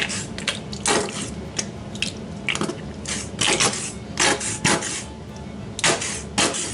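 Squeeze bottle of barbecue sauce squeezed upside down, sputtering out sauce and air in short, irregular bursts, about eight of them.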